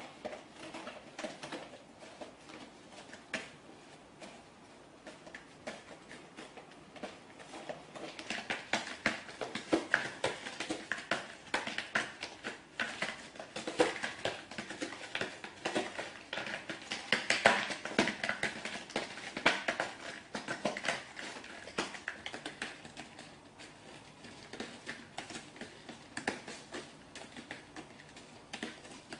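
A cat scrabbling about: a dense run of quick scratchy clicks and rustles, sparse at first, busiest in the middle and thinning out near the end.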